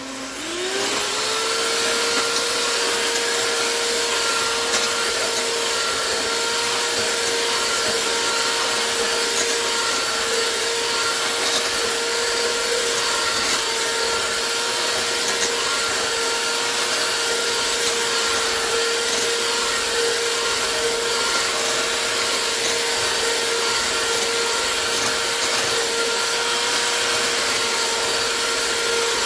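Black+Decker electric hand mixer running, its beaters whipping mashed potatoes in a metal pot. The motor whine rises in pitch in the first second as it speeds up, then holds steady.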